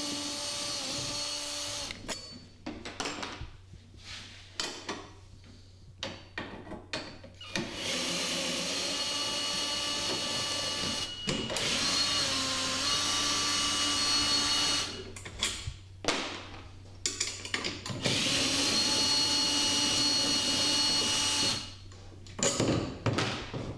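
Power drill with a 7/16 socket running in about four steady bursts of a few seconds each, spinning out a golf cart roof support's bolts and nuts, with short clicks and clatter of metal parts between the runs.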